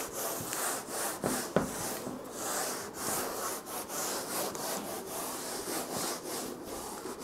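Whiteboard eraser rubbed back and forth across a whiteboard in repeated strokes, wiping off marker writing, with one sharp knock about a second and a half in.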